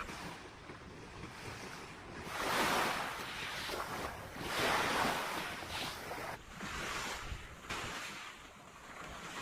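Sea waves washing onto the shore: two swells rise and fade about two seconds apart, over a steady surf hiss.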